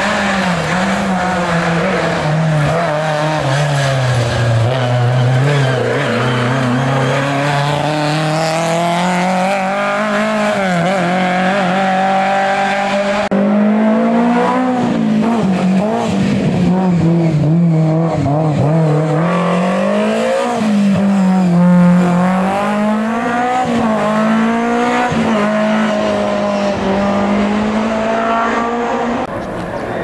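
Historic rally car engines at full throttle on a tarmac stage, the revs climbing and dropping again and again through gear changes and braking. About 13 seconds in the sound cuts abruptly to another car.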